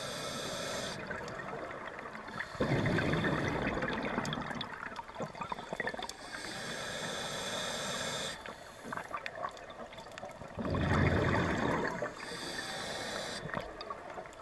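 Scuba diver breathing underwater through a regulator: a hiss on each inhale alternating with a louder, low rumble of exhaled bubbles, in a slow cycle of about two full breaths.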